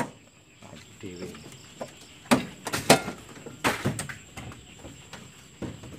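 A sharp latch click, then a few short knocks and clanks as the truck's tilt cab is unlatched and tipped forward to get at the engine.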